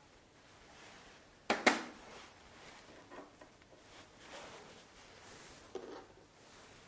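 Two sharp clicks in quick succession about a second and a half in, then soft handling and rustling and a lighter knock near the end, as a small glass jar and other lab items are handled on a tabletop.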